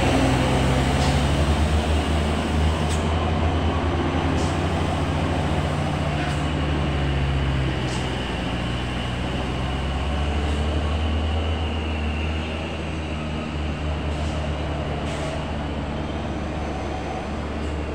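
Diesel engines of heavy trucks, tanker trucks and box trucks, running in low gear as they move slowly through a steep hairpin bend, a steady low drone that changes slightly as one truck passes and the next follows.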